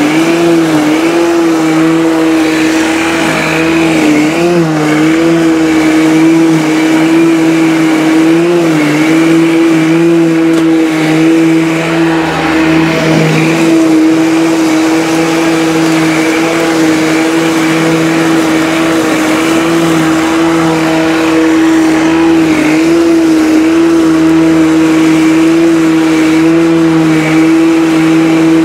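Pellenc Rasion 2 battery lawn mower running under load, its electric motor and twin blades giving a steady whine. The pitch dips slightly here and there as it cuts through long grass.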